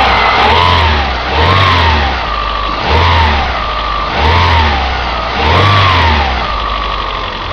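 Opel Astra G's X16XEL 1.6 16-valve petrol engine idling and blipped to low revs about five times, a whine rising and falling with each blip. The owner hears a ticking from the right side of the engine, which mechanics suspect is valve lifter wear, and a noise from the left side that he puts down to a worn cambelt tensioner roller.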